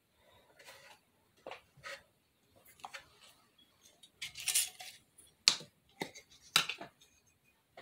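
A small glass jar with a metal screw-on lid being opened and handled: a short scraping rattle as the lid is twisted, then several sharp clinks of glass and metal.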